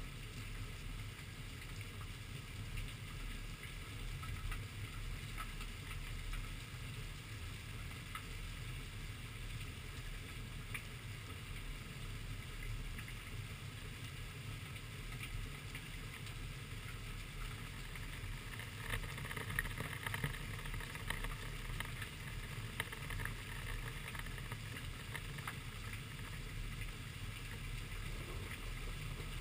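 Steady rain falling, with a scatter of raindrops tapping on the camera; the taps come thicker and louder for a few seconds about two-thirds of the way through.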